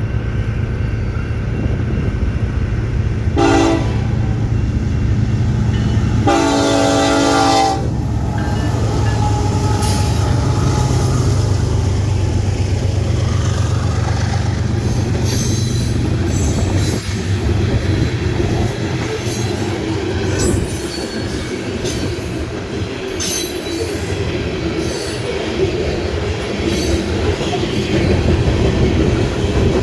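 A train passing close by sounds its horn twice, first a short blast and then a longer one about six seconds in. A steady low engine rumble follows, along with the rhythmic clickety-clack of wheels over rail joints.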